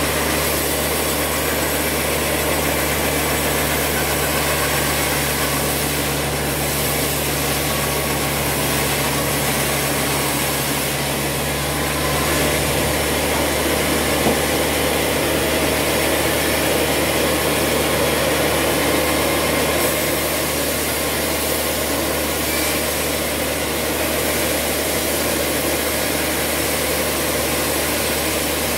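Large sawmill band saw running steadily as a squared timber beam is fed through its blade, a constant low machine drone under the hiss and rasp of the cut.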